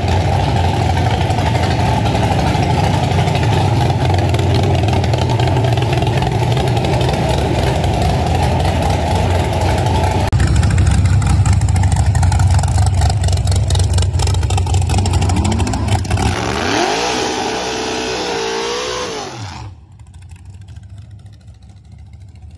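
Drag-racing square-body pickup's engine held at high rpm through a burnout. From about 16 seconds in it is revved up and down several times, then it drops suddenly to a much quieter idle near the end.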